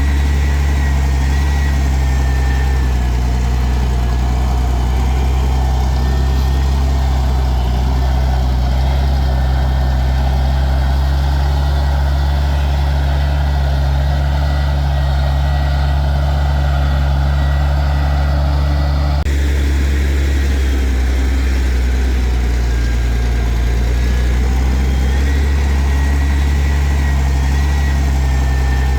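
Heavy diesel engine of earthmoving machinery running steadily, with a deep, even hum and an abrupt change in its sound about two-thirds of the way through.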